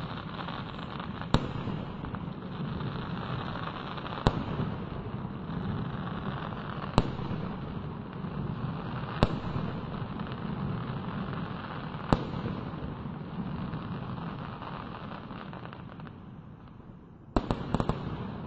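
Fireworks going off in the distance: five sharp single bangs, two to three seconds apart, over a steady noisy background, then a quick cluster of several bangs near the end.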